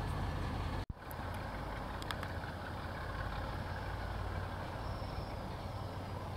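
Narrow-gauge diesel locomotive idling with a steady low hum. The sound breaks off abruptly about a second in, and a steady low rumble then runs on with a few light clicks.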